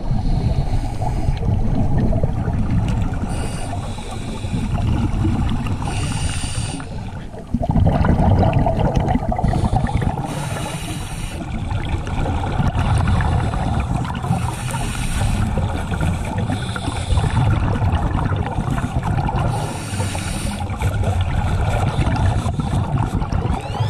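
Underwater sound around scuba divers: a steady low rumble with short hissing bursts of regulator exhaust bubbles every three to four seconds.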